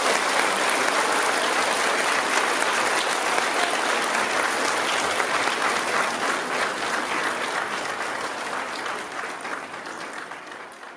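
Audience applauding, many hands clapping in a dense, steady patter that fades away over the last couple of seconds.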